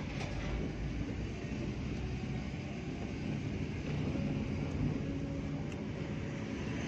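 Steady engine and road noise of a slowly moving vehicle heard from inside its cabin, a continuous low rumble.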